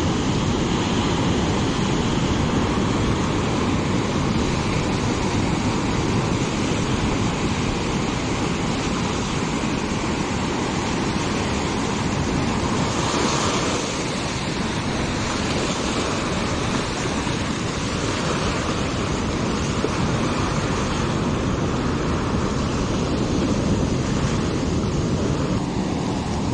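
Ocean surf breaking and washing up onto a sandy shore, a steady rushing with wind on the microphone; one wash swells louder about halfway through.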